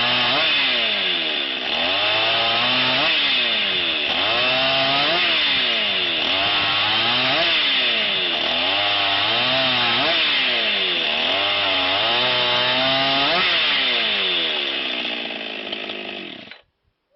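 Petrol chainsaw cutting firewood, its engine pitch rising and falling over and over, about once a second, as the chain works through the wood. It cuts off suddenly near the end.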